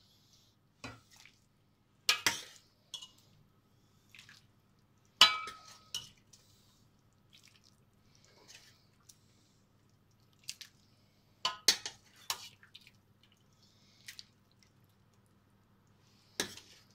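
Steel soup ladle knocking and clinking against a stainless-steel pot and a bowl as soup is ladled out, a handful of sharp knocks, the loudest about five seconds in, with soft splashes and drips of broth in between.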